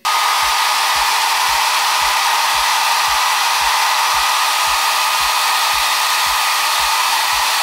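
Handheld hair dryer blowing steadily at a constant setting with a faint steady whine, drying freshly sprayed lace-holding spray so the wig's lace sets flat. It starts suddenly.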